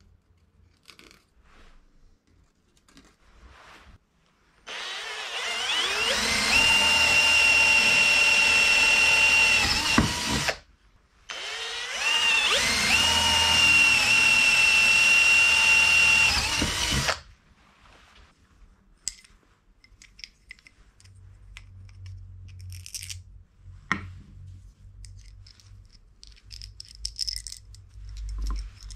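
Hand-held power tool motor run twice for about six seconds each, spinning up with a rising whine and then holding a steady pitch, with light clicks and handling knocks around it.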